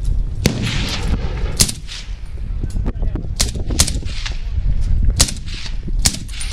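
Semi-automatic rifle shots from an FN SCAR fitted with a Surefire suppressor, fired one at a time: about six sharp cracks at uneven intervals, two of them close together near the middle.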